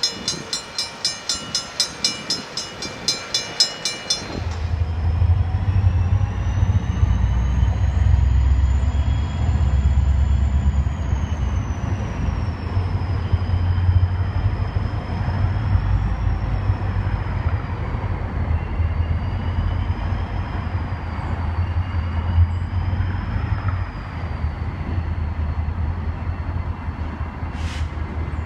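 Norfolk Southern train passing close by: a bell rings rapidly, about three to four strikes a second, and stops about four seconds in. Then the heavy, steady rumble of the diesel locomotives and rolling train takes over, with a thin high whine wavering up and down above it.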